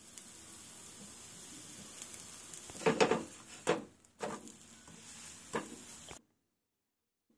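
Aloo paratha sizzling in oil on a hot griddle pan, with a steel spatula scraping and knocking against the pan several times around the middle as the paratha is lifted and flipped. The sizzling cuts off suddenly near the end.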